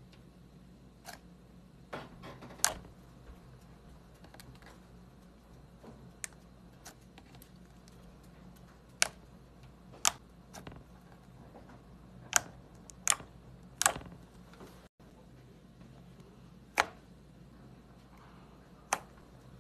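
About a dozen sharp, isolated clicks and snaps at irregular intervals over a faint steady low hum, with an abrupt cut about 15 seconds in.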